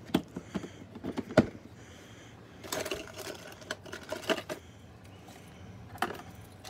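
Hand rummaging in a plastic parts organizer: sharp plastic clicks and knocks, with small metal parts rattling and rustling in plastic bags.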